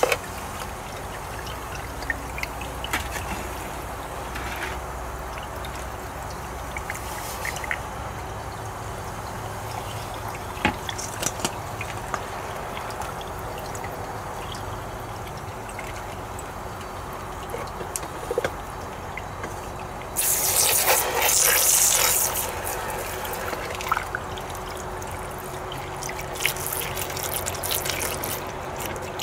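Water trickling steadily as wet, crushed ore is fed and washed through a gold separator's feed bucket, over a faint steady hum from the water pump, with occasional small knocks of the plastic scoop. About twenty seconds in, a louder rush of water sprays for a couple of seconds as the bucket is hosed out.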